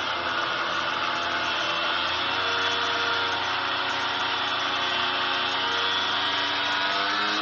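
Power tool with a cutting blade running steadily as it cuts through steel sawmill-blade stock, its pitch wavering slightly under load.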